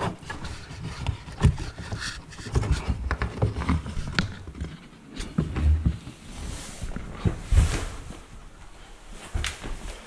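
Irregular rubbing, clicks and knocks of hands working in a dishwasher's base tray and lifting out the wet float disc that trips its micro switch, with low bumps of handling close to the microphone.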